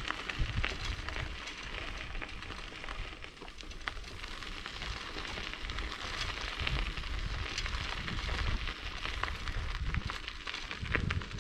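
Bicycle tyres rolling over a gravel track: a steady crunching crackle full of small ticks from the stones, over a low uneven rumble.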